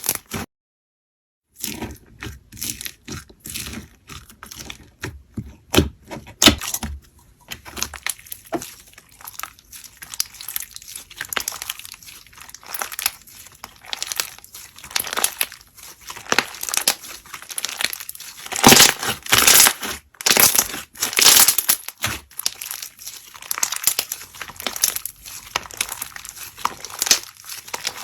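Slime being squeezed, stretched and pressed by hand close to the microphone: a dense, irregular run of crackling, crinkling pops, louder in the second half. The sound cuts out completely for about a second just after the start.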